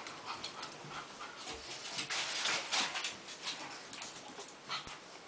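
Pug panting, a run of quick noisy breaths, loudest about two to three seconds in.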